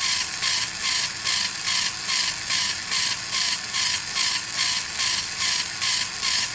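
Steam-locomotive chuffing, even and unchanging, at about three hissing puffs a second.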